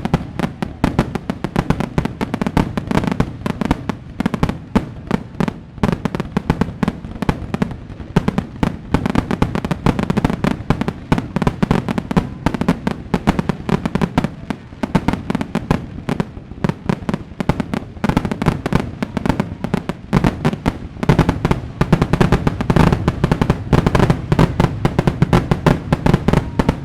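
Fireworks: a dense run of rapid bangs and crackles, many a second, over a steady deep rumble.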